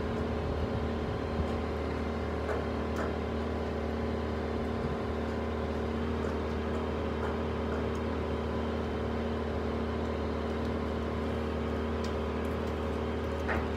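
Excavator's diesel engine idling steadily, a constant even hum with no change in speed.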